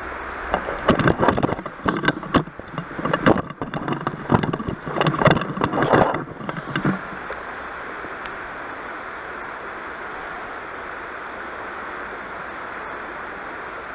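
Close-up rustling, knocking and scraping from the action camera being handled and repositioned, an irregular clatter that stops about seven seconds in. Underneath, the steady rush of a shallow river running over stones.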